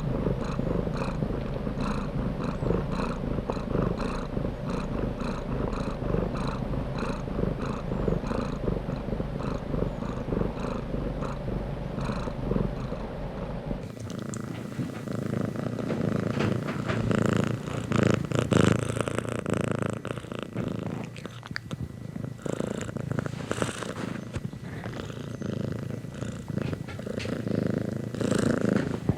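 Domestic cat purring close to the microphone, continuous. About halfway through the sound changes abruptly, the deep rumble dropping away and a brighter, more uneven purr taking over, as if from a different recording.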